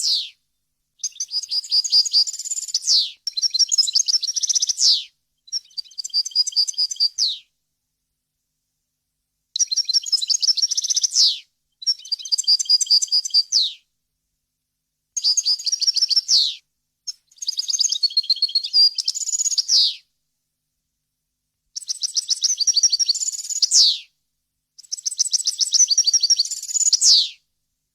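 European goldfinch singing: about nine phrases of fast, high twittering trills, each two to three seconds long and often ending in a quick falling sweep, with short, fully silent gaps between them.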